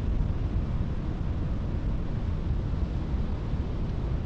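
Wind buffeting the microphone: a steady, restless low rumble with a rushing hiss above it.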